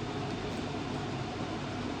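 Steady fan-like whir over a low machine hum, with no distinct clicks or strikes.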